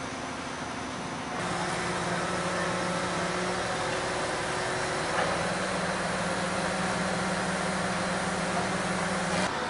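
Truck-mounted crane's engine running steadily with a constant hum, growing louder about a second and a half in.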